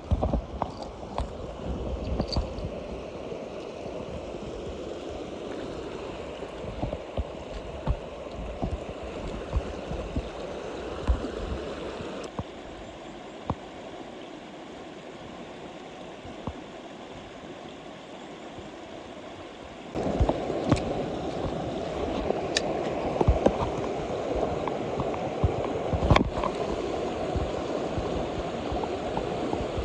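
Mountain stream water running over rocks, a steady rushing that drops quieter about twelve seconds in and gets louder again about twenty seconds in. Occasional sharp clicks and knocks sound over it.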